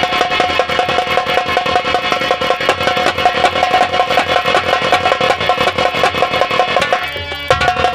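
Nautanki stage band playing fast drumming under a steady held melodic note, the music thinning out briefly about seven seconds in.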